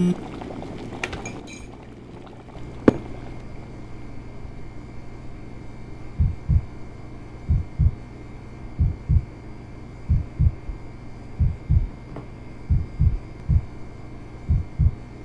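Heartbeat sound effect: pairs of low thuds, about one pair every 1.3 seconds, beginning about six seconds in, over a steady low hum. In the first few seconds a spoon clinks against a glass coffee jar.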